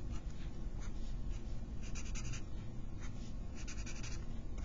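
Highlighter marker scratching across paper in a few runs of quick strokes as it colours in boxes on a worksheet.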